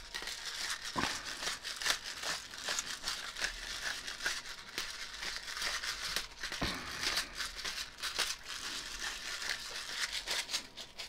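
A Kirkland black pepper grinder being twisted steadily, cracking peppercorns in a continuous fine crackle, with a couple of low knocks from handling the grinder.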